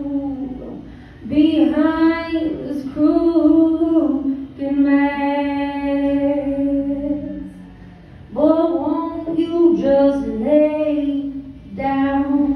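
A woman singing a cappella into a microphone, with no accompaniment: long held notes in phrases, with short breaks about a second in and again around eight seconds.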